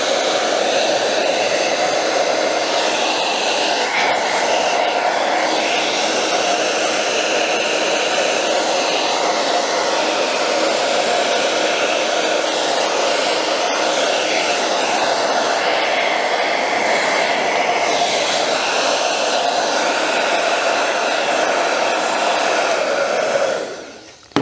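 Hand-held hair dryer running steadily, blowing hot air onto a plastic sole protector sheet to soften it. It is switched off near the end and its sound dies away.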